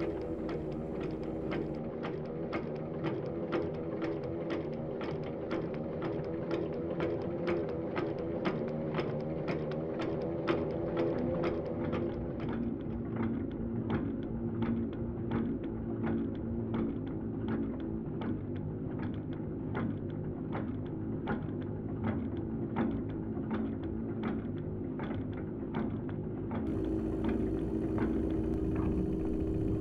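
A steady low hum with a regular clicking, about two clicks a second.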